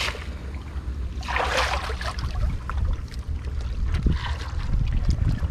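Small waves washing and splashing against the rocks at the water's edge, swelling about a second in and again about four seconds in, over a low wind rumble on the microphone.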